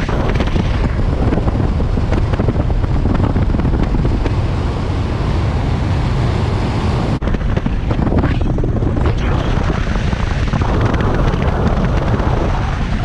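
Boat running at speed: a steady outboard engine drone under heavy wind buffeting on the microphone, with a brief dropout about seven seconds in.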